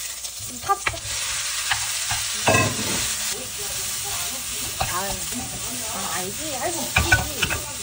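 Shredded cabbage hitting a hot oiled wok, sizzling loudly at once, then being stir-fried with a wooden spatula and tossed in the wok over a gas burner. The steady sizzle runs under many clacks and scrapes of spatula and pan, with a few louder knocks near the end.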